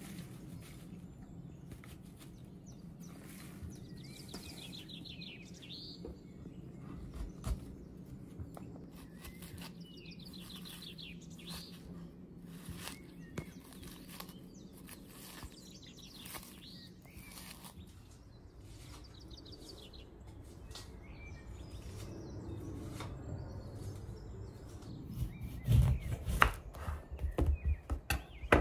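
A wooden utensil stirs and scrapes chopped onion and a white powder in a wooden bowl, making soft clicks, while a songbird chirps in short trills now and then. Near the end come several loud knocks on a wooden chopping board as lemons are handled and cut.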